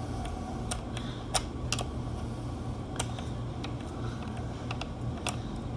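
A few scattered small clicks and ticks from a Torx screwdriver turning a loosened screw in the housing of a Robot Coupe MP450 Turbo immersion mixer, over a steady low hum.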